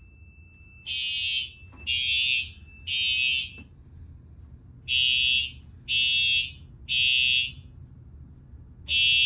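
Fire alarm horn sounding loud in alarm, a high-pitched blare in the temporal-three evacuation pattern: three short blasts about a second apart, a pause of about a second and a half, three more blasts, then the next group starting near the end.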